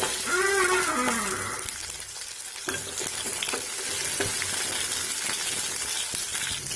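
Whole small onions sizzling in hot oil in a stainless steel kadai as they are stirred, a steady hiss with the spatula clicking against the pan now and then. A brief voice sounds over the first second and a half.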